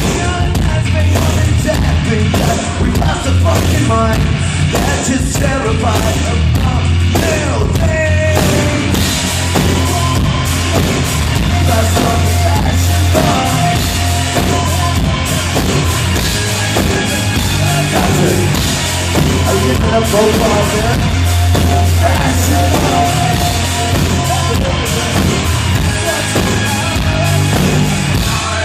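A rock band playing live on stage during a sound check: loud, steady drums, bass and guitars with a singer's voice over them.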